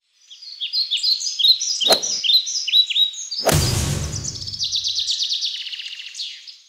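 Birds chirping in quick, short, falling calls, with a sharp click about two seconds in. About three and a half seconds in comes a whoosh with a low thud, and a fast high trill then runs on and fades out near the end.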